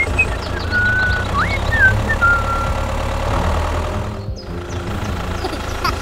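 Tractor engine running steadily, with a few whistle-like chirps over it in the first two seconds and a brief break a little after four seconds.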